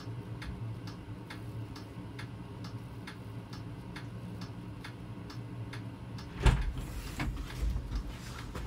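Kubota Grand L4760 tractor's diesel engine idling, heard from inside the cab, with a steady ticking about three times a second over it. About six and a half seconds in there is a sudden thump, followed by rustling and knocking.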